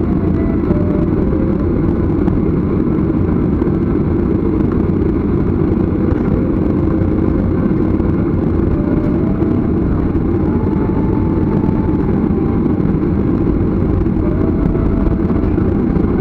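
Jet airliner taxiing, heard from inside the passenger cabin: a steady, loud rumble of the engines at taxi power, with a faint whine that drifts slowly up and down in pitch.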